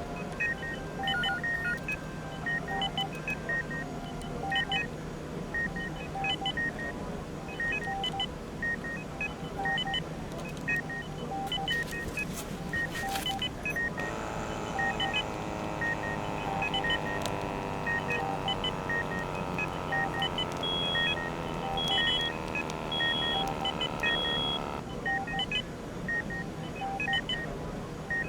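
Hospital medical equipment beeping: several monitors give short repeated beeps at different pitches over a steady low hum. About halfway through, a wash of many sliding tones comes in for about ten seconds and stops suddenly, and four longer high beeps sound near its end.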